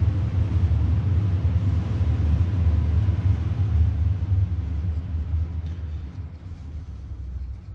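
A steady low rumble that fades away over the last couple of seconds.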